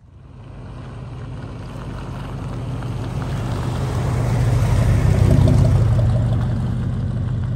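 A 1979 Ford F-350's 460 V8 engine drives past, a deep steady engine note that grows louder as the truck approaches, is loudest about five seconds in as it passes, then fades slightly as it pulls away.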